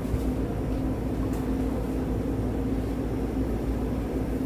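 Steady low drone of a running vehicle engine, with a constant hum underneath.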